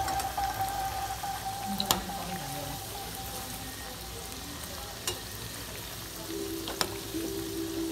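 Cabbage manchurian balls deep-frying in hot oil in a kadai, a steady sizzle, while a metal slotted spoon turns them, with a few sharp clicks of the spoon against the pan.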